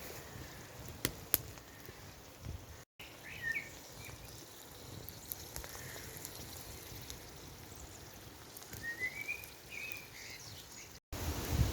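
Woodland ambience with short chirping bird calls, once about three seconds in and again about nine seconds in, over a faint steady background and a few sharp clicks in the first couple of seconds. The sound cuts out completely for an instant twice.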